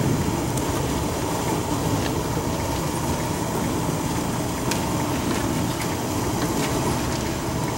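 Steady low rumbling room noise of a large auditorium, with a few faint scattered clicks.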